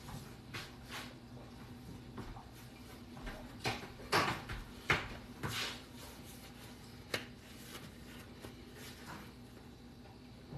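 Paper towel rustling as hands are dried, with a few short scuffs and light knocks in the first seven seconds, over a faint steady hum.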